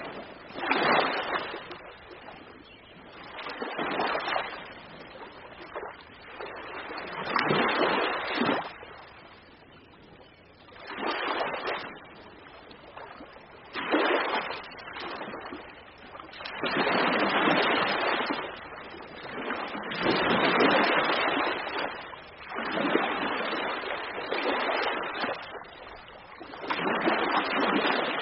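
Ocean waves breaking one after another, each surge of surf building and fading every two to three seconds.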